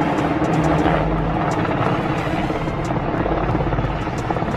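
UH-60 Black Hawk helicopter flying low overhead: steady rotor and engine noise with a rapid, even pulsing from the blades.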